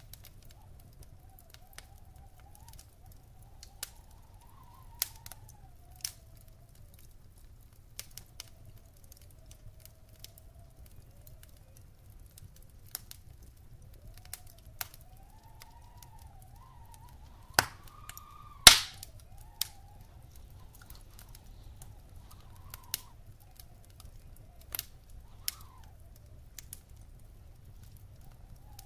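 Wood fire crackling in a fireplace, with scattered sharp pops, the loudest two close together about two-thirds of the way through, over a low steady rumble and a faint, slowly wavering whistle.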